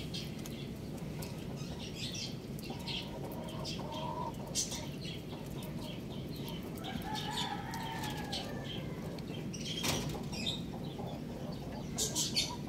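A rooster pecking feed from a clay bowl: irregular quick beak taps and clicks on the grain and bowl, with a sharper knock about ten seconds in and a fast cluster of taps near the end. A few soft low clucks come in between.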